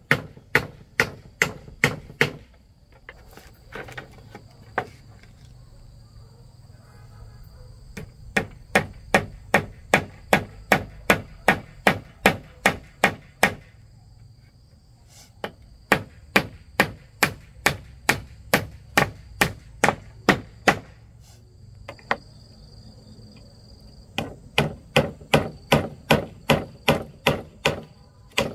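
Rapid, even chopping strokes with a blade on a board, about three a second, in runs of several seconds with short pauses between.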